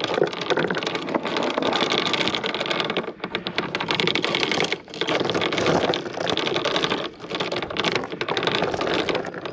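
Small outboard motor running, a dense rattling noise that dips briefly now and then.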